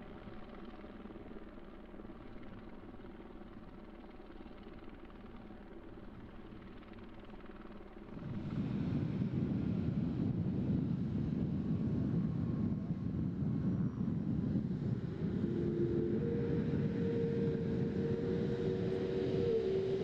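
Boeing 787 Dreamliner's Rolls-Royce Trent 1000 turbofan engines running as the jet taxis on the runway. The sound is fainter and steadier at first, then from about eight seconds in it becomes a much louder, closer rumble, with a steady hum joining near the end.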